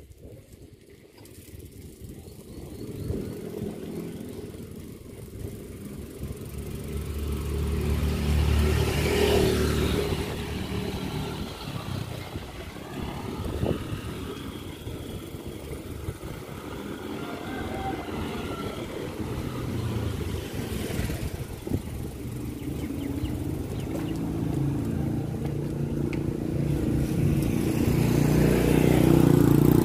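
Motorcycle engine running. It grows louder over the first eight seconds or so, eases off, then builds again to its loudest near the end.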